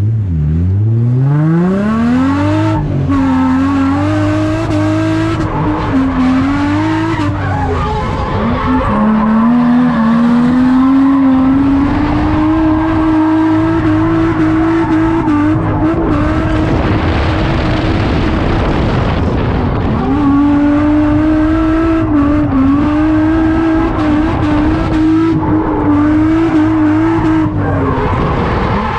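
Drift car on track: its engine revs hard up from low in the first couple of seconds, then is held high and wavers with the throttle through long slides. Tyre squeal builds up in the middle. The revs drop briefly about 8 s and about 20 s in, then climb again.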